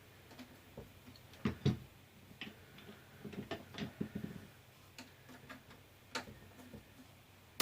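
Scattered light clicks and taps of small tools and parts being handled, as drivers are tried for size on the wheelie bar screws of a Losi LMT RC truck. There is a pair of clicks about a second and a half in, a cluster around the middle, and single taps near the end.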